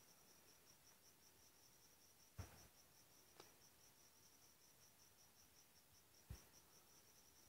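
Near silence with a faint, regular high-pitched chirping, about four or five chirps a second, and a few soft thumps about two and a half, three and a half and six seconds in.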